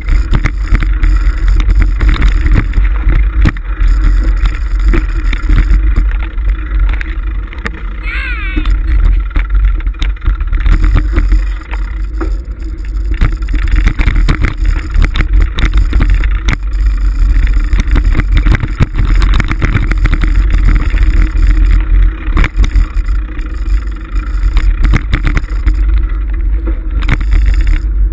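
Mountain bike riding over a rough dirt singletrack, heard through a handlebar-mounted camera: a loud, steady low rumble of wind and tyres with constant rattling and knocking from the bike over the bumps. A brief wavering squeal about eight seconds in.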